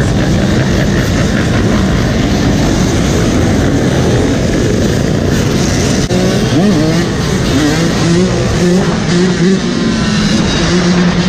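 Many dirt bike engines running and revving together in a dense, loud mix. From about six seconds in, one dirt bike's engine stands out, rising in pitch and dropping back several times as it accelerates through the gears.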